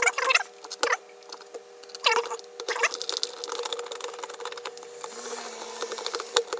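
Rapid, sped-up clatter of hands working the plastic housing and parts of a desoldering gun as it is put back together: quick clicks, taps and scrapes of plastic, running at four times normal speed.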